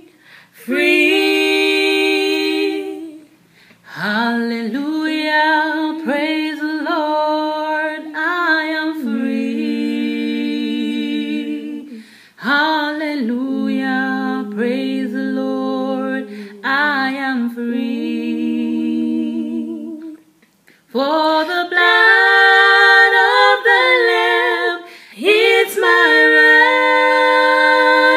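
Two women singing a gospel worship song together, unaccompanied, in sustained, drawn-out phrases with brief breaths between them.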